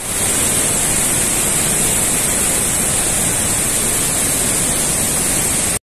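Waterfalls and river of the Fuentes del Algar, swollen with rainwater: a loud, steady rush of water that cuts off suddenly near the end.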